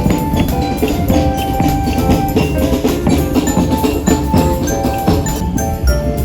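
Music led by quick, bright mallet-percussion notes like a xylophone, played in a dense run over a steady low rumble.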